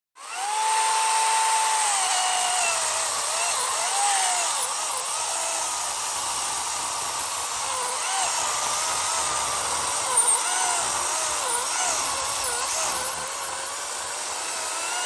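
Worx WG385E Nitro 40 V cordless chainsaw cutting through a log about 28 cm thick. The motor starts with a steady high whine, then about two seconds in its pitch drops and wavers as the chain bites and works under load, over the noise of the chain cutting wood.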